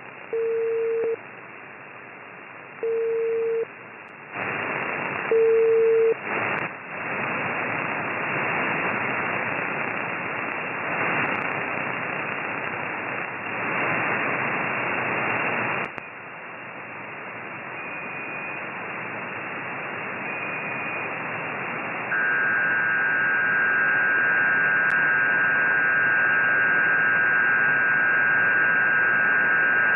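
Amateur radio receiver audio on the 6-metre (50 MHz) band: hiss filling the narrow sideband passband and surging up and down, the interference noise being investigated. In the first few seconds come three short beeps on one low tone, and from about two-thirds of the way in several steady whistling tones ride over the hiss.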